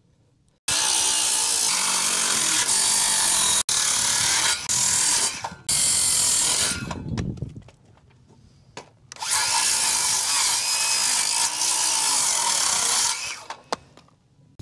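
Power saw, most likely a circular saw, cutting through wooden rafter tails along a chalked line: one cut starting suddenly about a second in and lasting several seconds, then a second cut later on.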